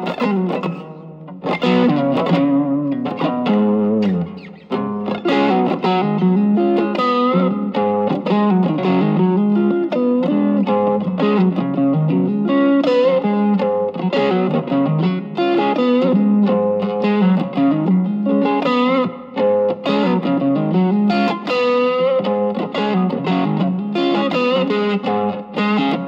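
Electric guitar, a Stratocaster, played through an Ibanez TS808 Tube Screamer fitted with a 1980 Malaysian RC4558P op-amp at a low gain setting, with the guitar's volume knob rolled back to clean up the overdrive. It plays continuous melodic lines and chords with string bends and vibrato, in a mildly overdriven tone.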